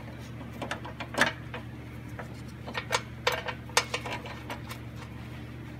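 Scattered light clicks and taps of a hand tool and metal parts as a bar is fitted back in place, irregular and a few a second at most, over a steady low hum.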